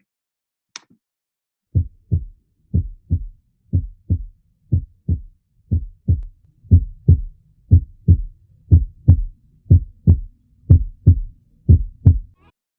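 Human heart sounds through a stethoscope: a steady lub-dub, the first and second heart sounds, about one beat a second. There are about eleven low thumping pairs, starting a little under two seconds in.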